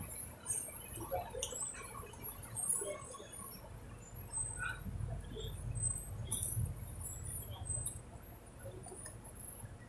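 Close-up chewing of fried street food such as fish balls and kikiam: soft wet mouth smacks and small clicks, scattered and irregular, fading toward the end.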